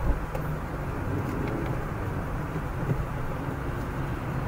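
Steady road noise inside a car's cabin while driving on a wet road: a low rumble of engine and tyres.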